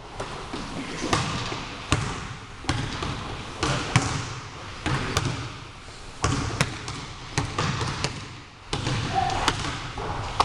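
Basketball bouncing on a hardwood gym floor: sharp, irregularly spaced bounces in a large gym.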